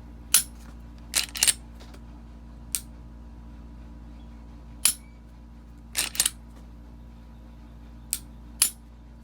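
Glock 43x pistol being dry-fired and cycled: about nine sharp metallic clicks at uneven intervals, some in quick pairs. These are the trigger breaking on the newly fitted OEM Minus connector and the slide being worked to reset the striker.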